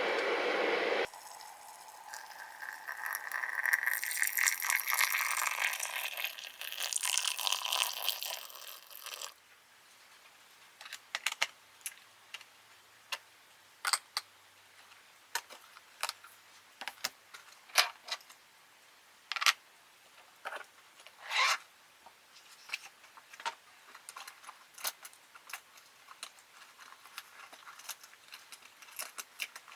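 Rustling and crinkling for several seconds, then scattered light clicks and taps as small objects are handled.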